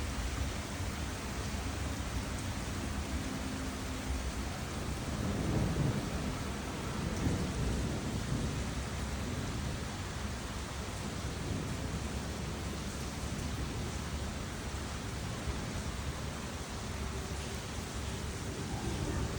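Steady rainfall, an even hiss of rain, with a low rumble underneath that swells about five to eight seconds in.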